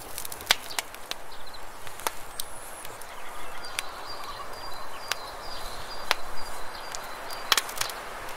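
Wood fire crackling: irregular sharp pops and snaps over a steady hiss.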